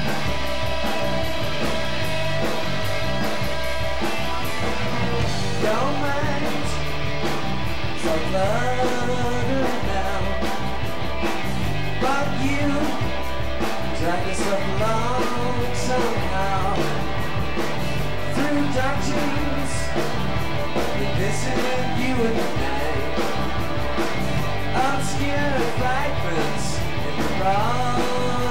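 Live rock band playing: electric guitars, bass and drums, with a male lead vocal that comes in about six seconds in.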